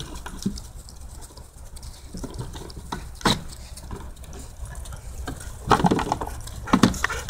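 Puppies scuffling and tugging over a toy in the snow: rustling and patter, with a few short, louder sounds about three seconds in and again near the end.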